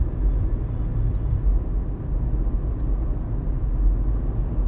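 Steady low rumble of engine and tyre noise inside a car's cabin while driving along at about 30 mph.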